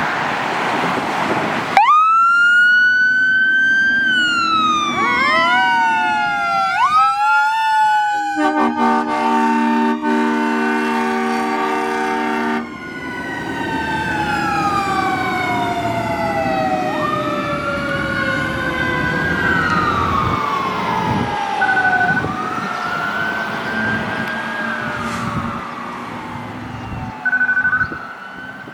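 The sirens of a 2024 Pierce Enforcer fire engine start up and wail, rising and falling. About eight seconds in, its train horn sounds a steady multi-note chord for about four seconds. The sirens then keep wailing, with two short high beeps near the end.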